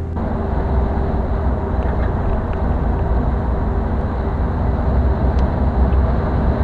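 Steady road and engine noise of a car driving at highway speed, heard from inside the cabin, with a deep low rumble and tire hiss.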